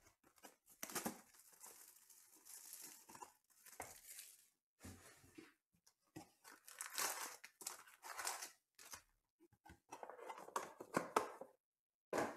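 A trading-card hobby box being torn open and its foil packs pulled out: short bursts of tearing, crinkling and rustling of wrapping and cardboard, with a longer tearing hiss about a second in and busier rustling of the packs being handled near the end.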